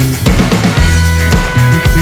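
Rock band playing: distorted electric guitars, bass and drums, with a held guitar note ringing over the beat.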